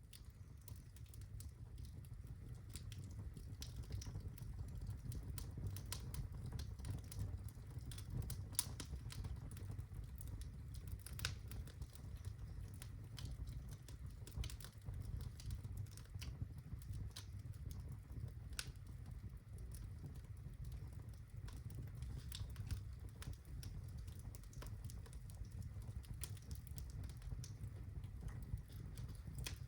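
Birch logs burning in a fireplace, crackling with irregular sharp pops and snaps over a steady low rumble of the flames.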